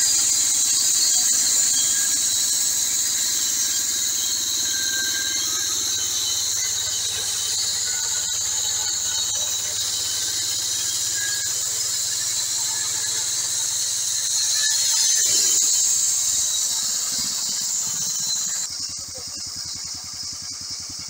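Band sawmill blade cutting lengthwise through a timber beam, a steady high-pitched squealing whine. It drops away abruptly near the end as the cut finishes, leaving a quieter running machine.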